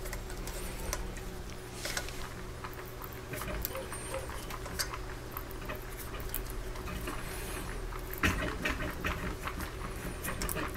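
Hand tap cutting threads in an aluminium bar, turned by a T-handle tap wrench, making faint scratchy clicking and creaking as it bites and chips break. A sharper cluster of clicks comes about eight seconds in.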